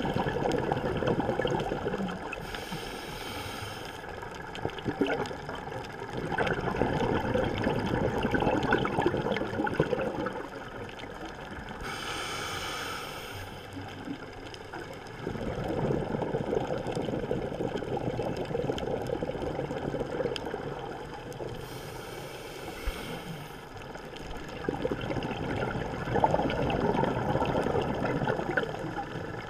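Scuba diver breathing through a regulator underwater: three short hissing inhalations, each followed by several seconds of bubbling exhalation.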